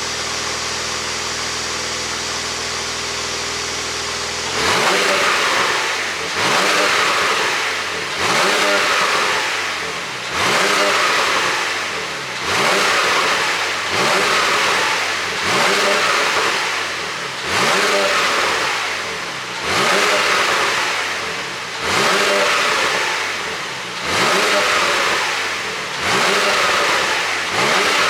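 Porsche 911 Targa 4S flat-six exhaust idling steadily. From about four and a half seconds in, it is blipped over and over, roughly once every two seconds, each rev rising sharply and falling back toward idle.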